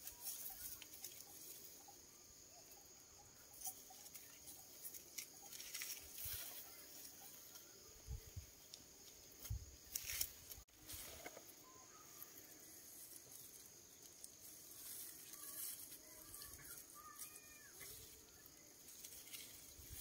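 Faint rustling of dry cut rice stalks handled in bunches as they are gathered and bundled by hand, with a few soft thumps about halfway through and a steady thin high hiss behind.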